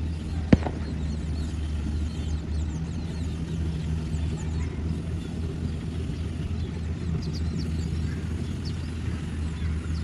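Kubota rice combine harvester's diesel engine running at a steady drone while it harvests, with short high chirps scattered throughout. A single sharp click about half a second in.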